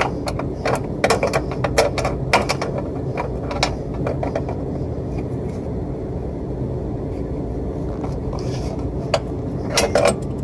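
Metal wrench clicking and clinking as the blower motor's mounting bolt is tightened, to hold the belt tension. A quick run of clicks fills the first few seconds, and a few more come near the end, over a steady low hum.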